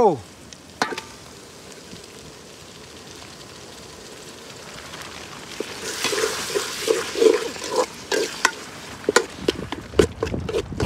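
Onions, chillies and freshly added chopped tomatoes sizzling in a metal cooking pot, with a clatter as the plate is lifted away. From about six seconds in, a metal spoon stirs and scrapes the pot in repeated strokes, the sizzle growing louder, with sharp taps of the spoon on the pot near the end.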